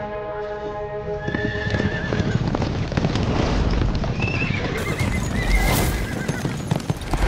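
A group of horses galloping with fast, dense hoofbeats on a dirt track. Horses whinny about a second in and again around four seconds in. Music fades out in the first second.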